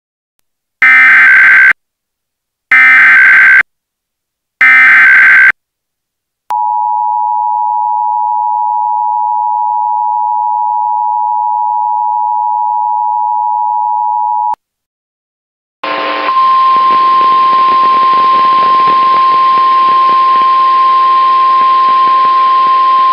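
Emergency Alert System relay: three loud, buzzy SAME data header bursts about a second each, then the two-tone EAS attention signal held for about eight seconds. After a brief gap a relayed NOAA Weather Radio feed cuts in with hiss and a single steady warning alarm tone, which introduces a National Weather Service severe thunderstorm warning.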